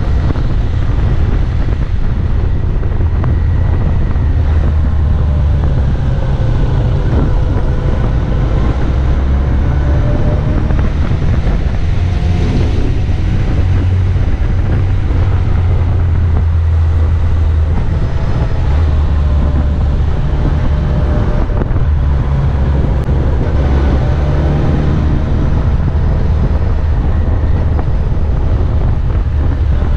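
Motorcycle riding at speed, with heavy wind rumble on the camera microphone over the engine note. The engine's pitch rises and falls slowly as the rider opens and closes the throttle.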